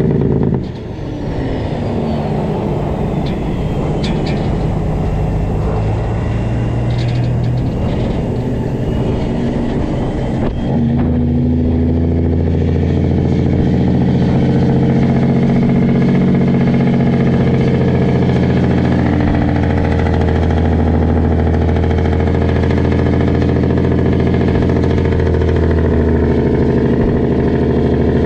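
Straight-piped Cat C15 diesel engine of a Peterbilt truck running loud. The level dips briefly about a second in, with the pitch falling over the next few seconds, and about ten seconds in the engine settles into a strong, steady note that holds.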